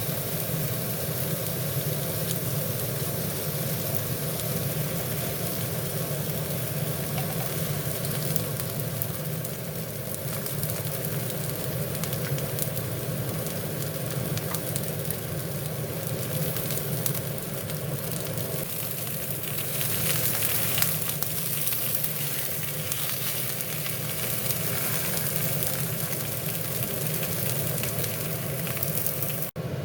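Sliced Korean zucchini (aehobak) sizzling and crackling in oil in a hot frying pan, over a steady low hum. The sound cuts out briefly near the end.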